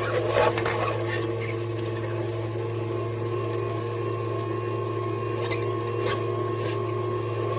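Electric juicer motor running with a steady hum while greens and produce are crushed, with faint crackles and a few sharper ticks around six seconds in.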